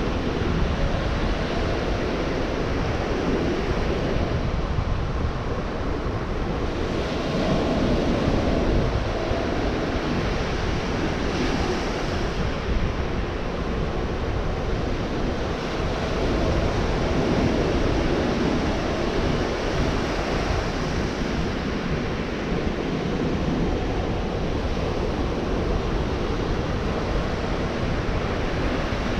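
Gulf of Mexico surf breaking and washing onto the beach, a continuous rush that swells and eases every few seconds, with wind buffeting the microphone.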